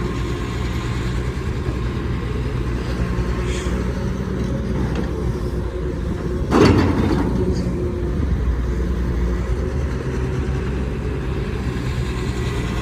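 Caterpillar 320D excavator's diesel engine running steadily under working load, with a single loud knock about halfway through.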